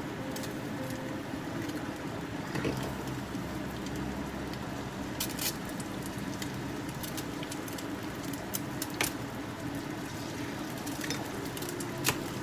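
Eggs cracked one at a time against the rim of a pan, giving a few sharp taps several seconds apart over a steady low background hum.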